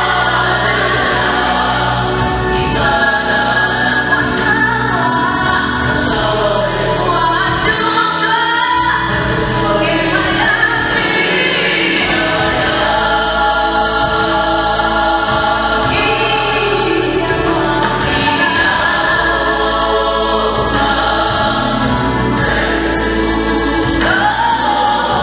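A gospel vocal group of male and female voices singing together in harmony, with a steady deep bass underneath the voices.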